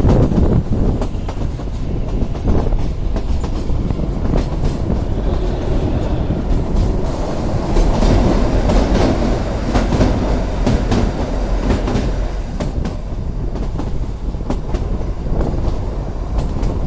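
Kalka–Shimla narrow-gauge toy train running along the track: a steady rumble with frequent sharp clicks from the wheels on the rails.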